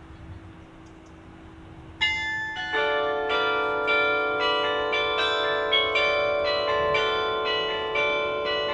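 Church tower bells ringing out a tune, starting about two seconds in. Notes are struck in quick succession, each ringing on and overlapping the next.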